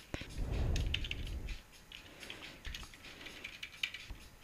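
Computer keyboard keys clicking in quick, irregular taps as code is typed, with a low rumble under the first second and a half.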